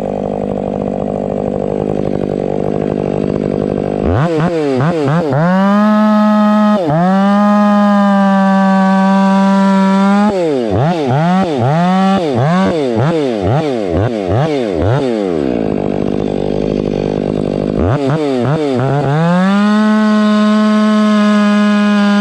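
Stihl 500i fuel-injected two-stroke chainsaw idling, then revving up to full throttle and holding there. About ten seconds in, the throttle is blipped repeatedly in quick rises and falls before the saw drops back to idle. Near the end it runs up to a steady full-throttle pitch again.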